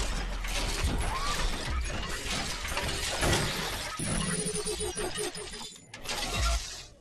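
Sound effects for an animated channel intro: a dense mix of mechanical clanks and shattering crashes. About four seconds in comes a run of rapid ratchet-like clicks that slow down, and a heavy low hit lands near the end.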